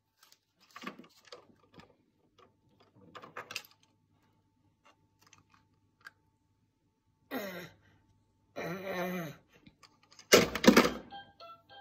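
Small plastic toys being handled and knocked together: light clicks and rattles, with a louder clatter near the end as a plastic rattle is swung against a toy farmhouse. Two short cries falling in pitch come in the second half.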